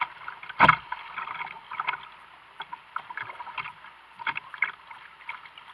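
Water rushing and splashing irregularly around a kayak running a creek in flood, with one sharp slap about half a second in.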